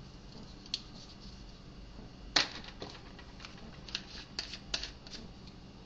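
Small clicks and taps of spice jars and a measuring spoon being handled while dried herbs are measured out: one sharper click about two seconds in, then a quick run of light clicks in the second half.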